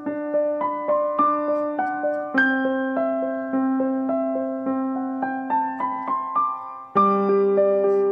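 Background piano music: a gentle melody of about two notes a second over held bass notes, changing chord about two seconds in and again near the end.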